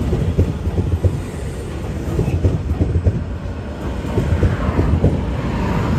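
Taiwan Railway 500-series train pulling out of a station: a heavy low rumble with frequent irregular knocks from the wheels and running gear.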